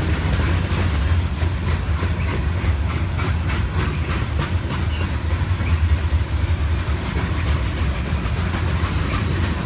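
A freight train of hopper cars rolling past: a steady low rumble with the wheels clicking and clacking over the rails.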